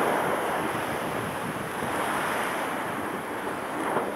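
Sea surf breaking on rocks and a stone seawall: a steady rush of waves.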